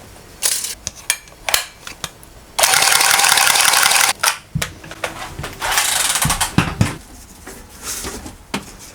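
Plumber's gas blowtorch hissing in two bursts of about a second and a half each, heating a soldered copper pipe joint, with clicks and knocks of metal between.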